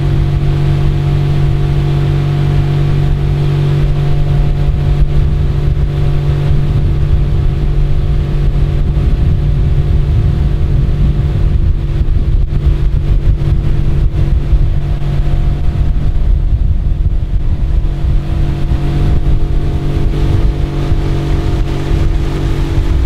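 Mercury 40 hp four-stroke EFI outboard running at a steady cruising speed, its pitch holding constant, as it drives a pontoon boat. A dense rush of wind and water from the moving boat sits under the engine.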